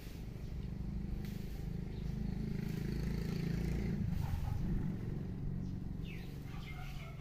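A motor vehicle's engine running in the background, a low hum that swells in the middle and eases off again, like a vehicle passing by. A bird chirps a few times near the end.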